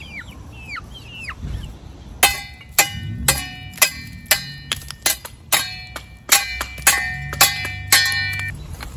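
Steel brick trowel knocking old mortar off salvaged bricks: sharp, ringing metal-on-brick strikes, about two a second, starting about two seconds in. Before the strikes, chickens give a few high chirps that slide downward.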